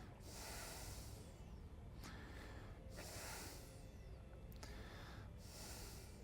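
A person breathing, slow regular breaths about every two and a half seconds, with a couple of faint clicks between them.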